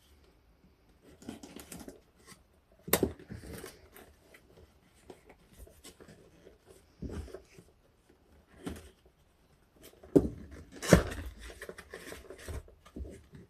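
Objects being handled on a hard surface: irregular clicks, knocks and rustling, with sharp louder knocks about three seconds in and twice around ten to eleven seconds in.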